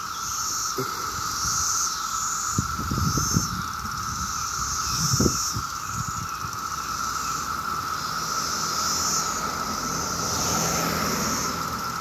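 Chorus of Brood X 17-year periodical cicadas: a steady droning hum with a higher buzz that swells and fades about every second and a half. A few low thumps a few seconds in.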